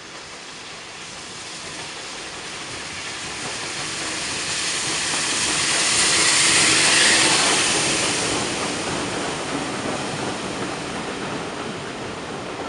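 Steam locomotive hauling a train of coaches passing close beneath, a rushing hiss of steam that swells to its loudest about six to seven seconds in as the engine goes under, then eases off as the coaches run by.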